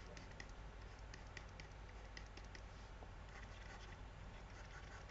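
Faint, irregular clicks of a computer mouse being pressed and moved while drawing, over a low steady hum.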